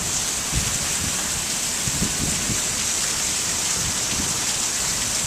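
Heavy wind-driven monsoon rain pouring down as a steady hiss, with irregular low rumbles underneath.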